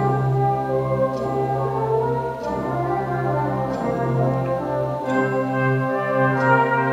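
Brass band playing slow sustained chords over a held low bass note, moving to a new chord about five seconds in.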